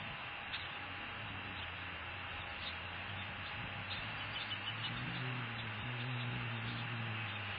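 Steady hiss and low hum from an outdoor nest microphone, with faint, short, high peeps now and then from day-old osprey chicks. The low hum grows a little louder about five seconds in.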